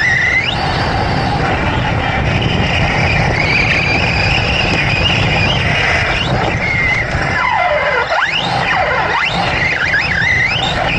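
Large-scale electric RC trophy truck driving on dirt, recorded from on board. Its motor whines, holding a high pitch, dropping sharply about two thirds of the way through, then rising and falling several times with the throttle. Under it runs a steady rumble and rattle of tyres and chassis on the dirt.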